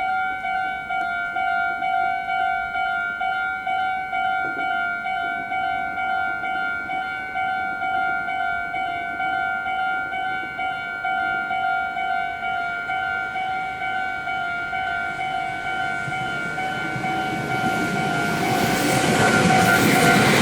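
Japanese level-crossing warning bell ringing, a steady two-tone ding pulsing about twice a second. From about 15 seconds in, an electric train approaches and its rumble grows until it is the loudest sound near the end.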